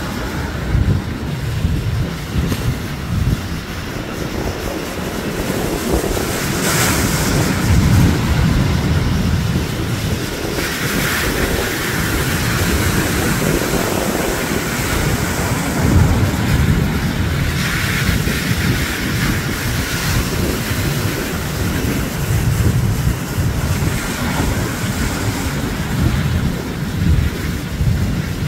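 Ocean surf breaking against a rocky outcrop, the hiss of the waves and spray swelling every few seconds, with wind buffeting the microphone as a steady gusty rumble underneath.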